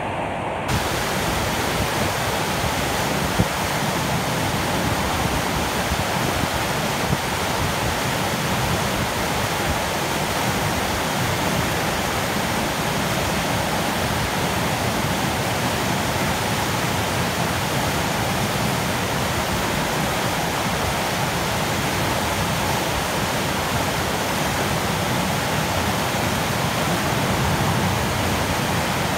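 Whitewater river rapids rushing over rocks: a steady, unbroken noise of churning water.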